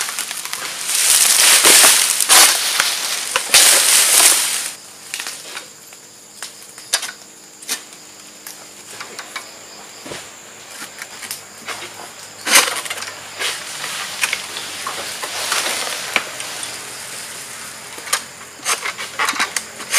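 Palm King Long Ultra egrek, a long-pole sickle, cutting oil palm fronds. Two loud rustling crashes come in the first five seconds as fronds come down through the leaves, followed by intermittent sharp cracks and scraping as the blade hooks and slices the frond stalks.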